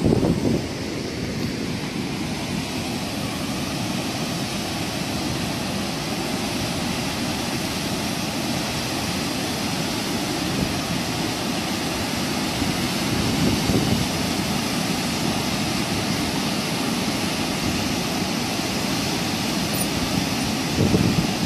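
Steady rushing of fast, muddy floodwater pouring through the openings of a low concrete bridge and churning downstream, with short louder bursts at the very start and near the end.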